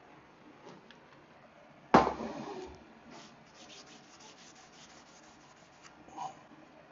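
A sharp knock about two seconds in, then quick, even scraping strokes of an Aritsugu santoku knife's blade on a sharpening stone.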